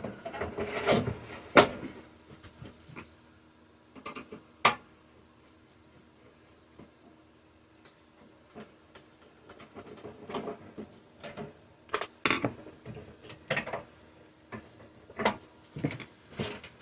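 Irregular clinks and knocks of microwave parts and tools being handled during a teardown, with a cluster at the start, one sharp knock about five seconds in, and more clinking in the second half.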